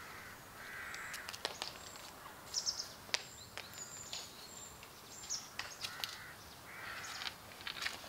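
Concrete paving blocks knocking and clinking as they are lifted from a stack, while crows caw a few times and small birds chirp.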